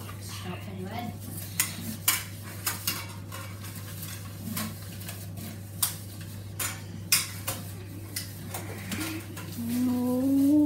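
A silicone spatula stirring thick chocolate batter in a plastic mixing bowl, with irregular clicks and knocks as it scrapes and taps the bowl. Near the end someone starts humming a held tune.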